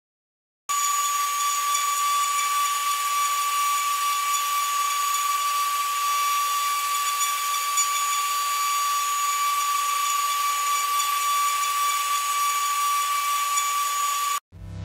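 High-speed CNC engraving spindle running as a fine bit cuts brass: a steady high whine over a hiss. It starts abruptly under a second in and cuts off just as suddenly near the end.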